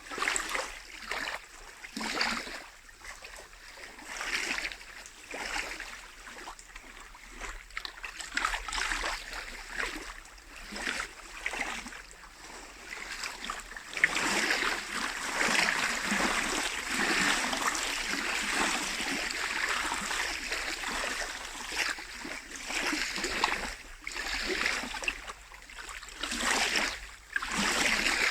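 Small lake waves lapping and splashing against the shore in irregular washes every second or two, running denser and louder for several seconds around the middle.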